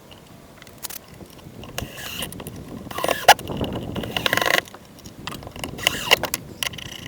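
Hands and tools working metal hardware while a boat's steering cable is being fitted and secured: irregular clicks, scrapes and short metallic clanks, busiest through the middle and again about six seconds in.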